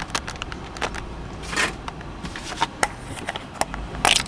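Handling noise from a camcorder whose view is blocked: irregular clicks and rustles against the microphone, with louder scraping rustles about a second and a half in and again near the end.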